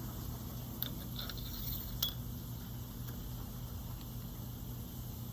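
A few faint metallic clicks and clinks of small washer clutch parts and a spring clip being handled and fitted, about one and two seconds in, over a steady low hum.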